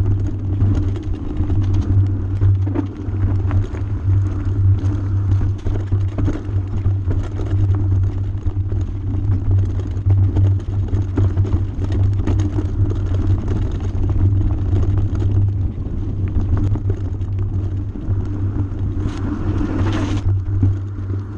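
Mountain bike rolling over a rocky gravel trail, heard from a handlebar-mounted camera: a steady low rumble of wind and vibration with constant small clicks and rattles from tyres and frame on the stones. Near the end a brief burst of hiss lasts about a second.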